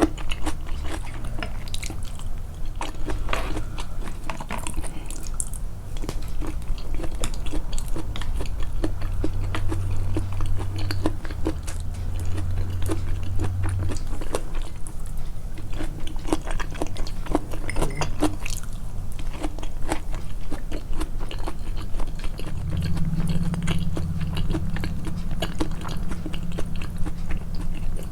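Close-miked chewing and biting of food, with crunches and many quick mouth clicks, the chewing boosted in editing. A low hum comes and goes twice.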